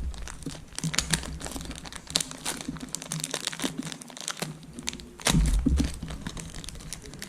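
Small plastic parts bag crinkling and rustling as it is handled and opened, with a louder low bump about five seconds in.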